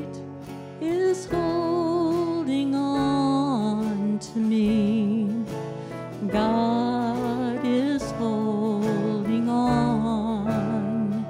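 Live praise band playing a slow worship song: a woman sings the lead melody in long, wavering held notes over acoustic guitar and drums.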